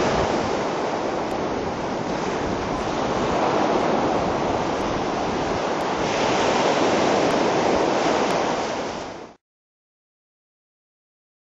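Steady rushing noise of beach surf and wind that cuts off abruptly about nine seconds in, followed by dead silence.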